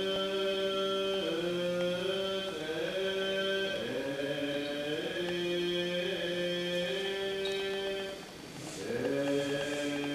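Shin (Jōdo Shinshū) Buddhist sutra chanting, with long held notes that slide up and down between pitches and a short pause about eight seconds in.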